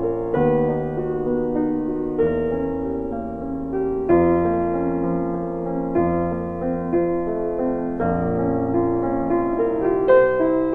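Background piano music, soft chords changing about every two seconds.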